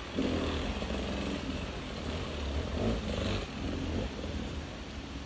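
Enduro motorcycle engine revving in repeated short bursts of throttle as the rider works the bike through a steep, rooty forest section.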